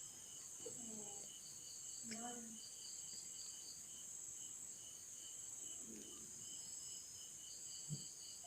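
Faint crickets chirping steadily with a continuous high pulsing trill, with a few faint murmurs and a soft knock over it.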